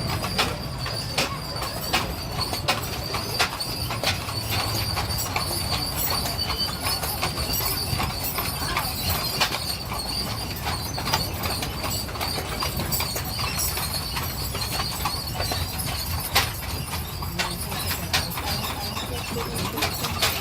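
Horse-drawn stagecoach on the move: irregular clip-clop of hooves over a steady low rumble of the rolling coach, with a faint steady high tone above.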